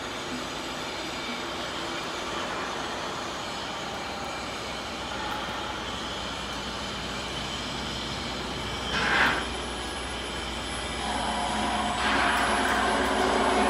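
Steady machine noise from electrical cabinet equipment in a workshop. There is a brief louder swish about nine seconds in. Near the end the noise grows louder and picks up steady humming tones.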